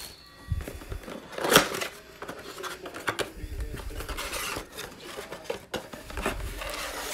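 Cardboard NBA Hoops blaster box being handled and torn open by hand, with one sharp snap about a second and a half in, then scattered clicks and crinkling of the box flaps and the foil card packs inside.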